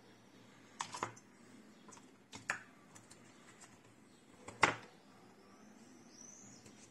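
A handful of light clicks and knocks as a metal precision screwdriver handle with a flexible extension is handled over a plastic bit tray and set into its slot, the sharpest about four and a half seconds in.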